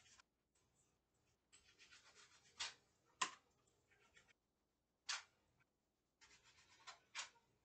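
Faint scraping and rubbing from hands working at a kitchen counter, broken by several short, sharp knocks about two seconds apart.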